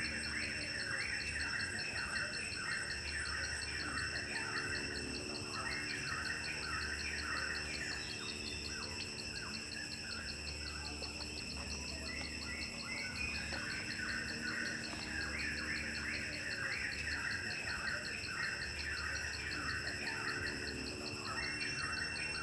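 Insects, crickets or similar, keep up a steady high, rapidly pulsing trill while birds call in repeated chirping bursts, with a faint low hum that comes and goes.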